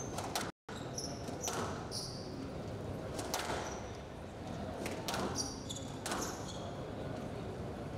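A squash rally: the ball is struck by rackets and smacks off the walls and floor in a string of sharp knocks, with short high squeaks of shoes on the court floor between shots. The sound cuts out for a moment about half a second in.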